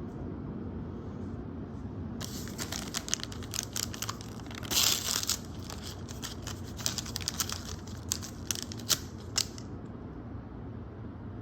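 Packaging being handled: a run of crinkling and rustling with sharp crackles, starting about two seconds in, with a louder tearing rustle around the middle, and stopping well before the end.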